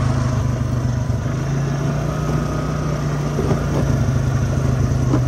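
Quad bike engine running at a steady, even pace while riding along.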